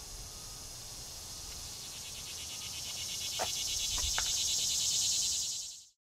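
Cicada buzzing, a pulsing drone that swells louder over a few seconds, with three brief chirps a little past halfway, then cut off abruptly near the end.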